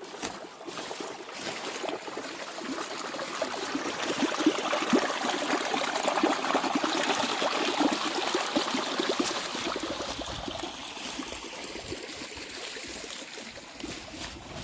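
Water of a small stream trickling and splashing, rising to its loudest about midway and then fading.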